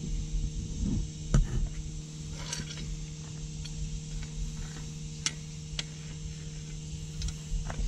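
Steady low electric hum with evenly spaced overtones, under scattered light clicks and taps; a sharper knock about a second and a half in.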